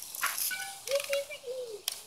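Red Ryder BB gun being handled: mechanical rattling and clicking, with one sharp click near the end. A short whistle-like call sounds in the middle.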